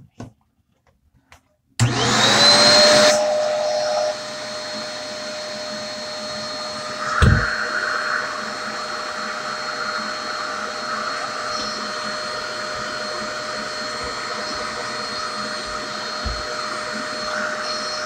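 Vacuum cleaner switched on about two seconds in, its motor spinning up to a steady whine over a rush of airflow. About seven seconds in there is a knock and a short surge in the sucking noise.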